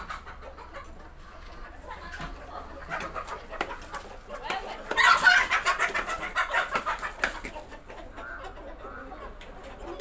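Chicken clucking, breaking into a loud run of rapid cackling about five seconds in that lasts two seconds or so.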